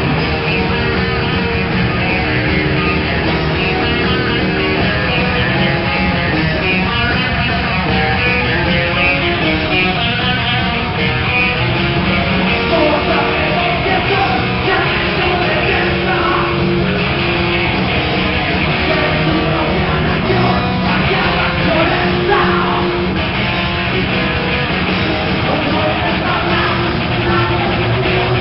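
A heavy rock band playing live, with electric guitar prominent, loud and unbroken throughout.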